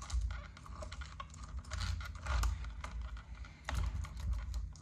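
Steel chainsaw chain clicking and rattling irregularly as its links are fed by hand around the bar and into a tight guide-bar groove.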